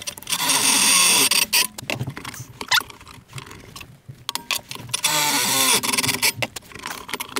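Cordless drill boring 11/32-inch holes through a welded sheet-metal bracket, to take 1/4-20 rivet nuts. Two spells of drilling of about a second and a half each, the second starting with a rising whine, with clicks and knocks of handling between.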